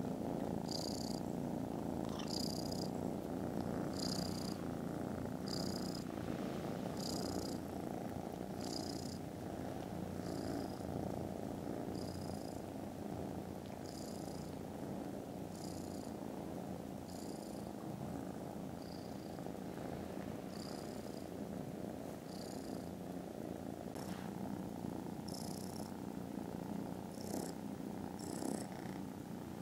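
Kittens purring very loudly close to the microphone, a steady low rumble that never lets up, with a faint hiss recurring about every second and a half.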